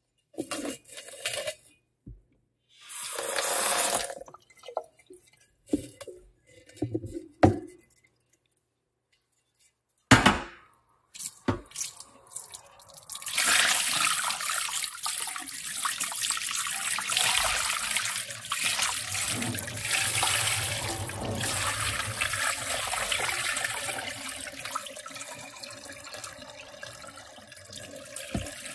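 Kitchen foley: a few scattered knocks and clicks and a short rush of noise, then, after a brief silence, a tap running water into a sink steadily for the second half, easing off near the end.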